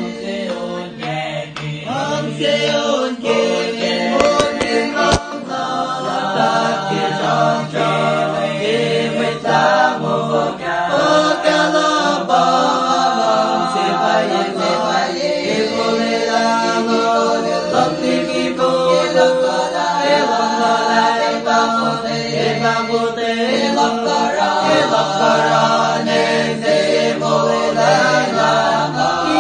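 Young men's choir singing unaccompanied in several parts, full-voiced and sustained, like a chant.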